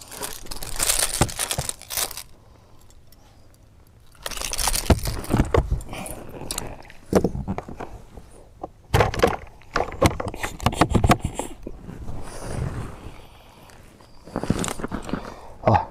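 Several bursts of rattling and scraping from handling a small snook that was just landed on a treble-hooked lure on a boat deck, with quieter gaps between the bursts.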